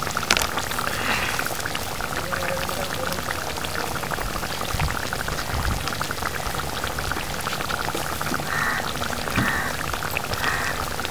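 Pot of fish curry boiling on a gas stove: a steady crackle of many small popping bubbles.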